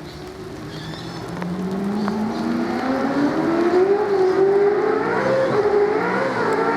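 Mercedes-Benz E63 AMG V8 Supercar's 5.0-litre flat-plane-crank V8 accelerating. The engine note climbs steadily in pitch and grows louder for about four seconds, then holds with small wavers.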